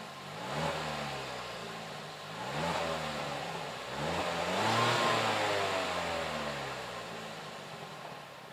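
Haval H2's 1.5-litre turbocharged four-cylinder petrol engine, heard at the exhaust, revved three times from idle. Each rev rises and falls back; the third, about halfway through, is the highest and longest before the engine sinks back toward idle.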